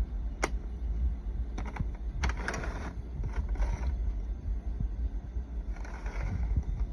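Plastic magnetic toy letters being handled and set down: a sharp click about half a second in, a few quick clicks and clattering around two to four seconds, and more clattering near the end, over a steady low rumble.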